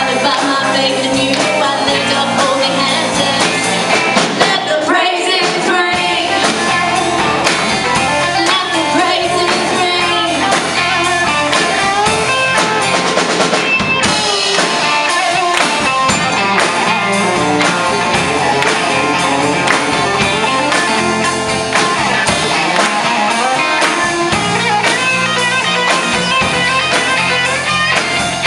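Live worship band playing an upbeat rock song: voices singing over drum kit and guitar, steady and loud.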